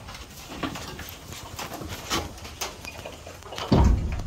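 Cattle moving about in a barn stall: scattered rustles and light knocks, with one louder low thump near the end.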